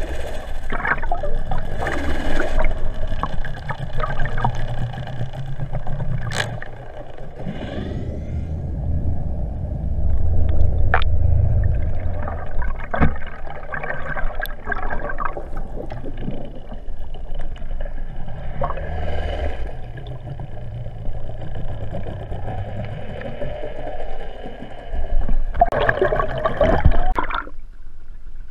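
Underwater sound from a GoPro camera towed through the sea: rushing water and a low rumble, with a faint steady whine from the boat's engine carried through the water and occasional clicks. Near the end there is louder splashing and gurgling as the camera breaks the surface beside the boat's hull.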